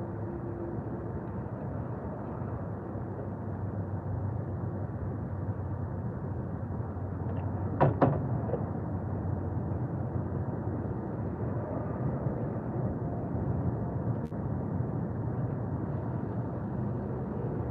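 Steady low outdoor rumble with sharp clicks from hand tools being handled in a car's engine bay: a quick pair about eight seconds in and a single click near fourteen seconds.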